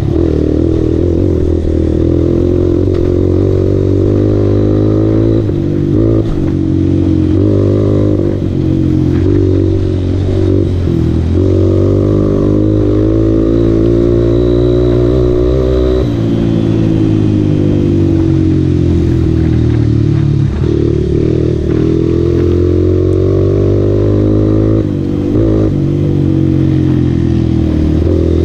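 Dirt bike engine heard from on board while riding a rough dirt trail. Its note rises and falls with the throttle, dropping sharply about halfway through before climbing again, with the bike rattling over the bumps.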